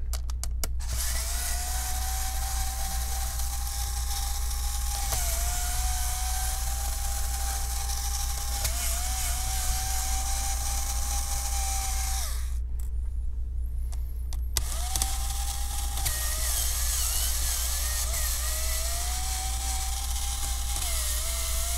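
Electric screwdriver running with a steady whine. Its pitch dips briefly several times as it loads up on the laptop's hinge screws. It stops for about two seconds a little past the middle, then runs again.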